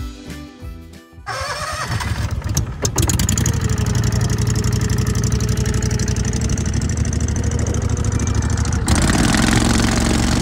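A small wooden fishing boat's engine starting about a second in, with a few knocks, then running steadily as the boat gets under way. Background music plays before the engine comes in.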